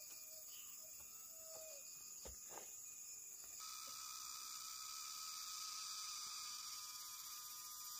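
Faint, steady high-pitched calling of insects, with a lower steady insect tone joining about three and a half seconds in. A few soft knocks just before.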